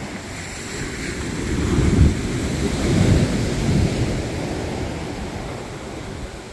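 Strong wind buffeting the microphone in low rumbling gusts, loudest about two and three seconds in, over the steady wash of surf breaking on the shore.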